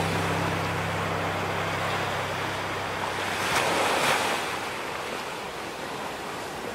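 Ocean surf washing in, a steady rush that swells to its loudest about three and a half to four seconds in, then eases off.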